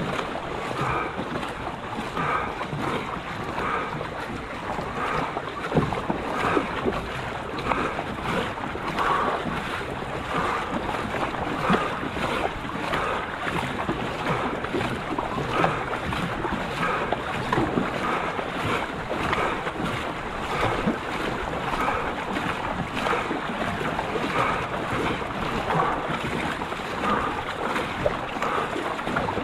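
Paddle strokes of a marathon racing canoe, splashing the water in a steady, regular rhythm, with wind buffeting the microphone.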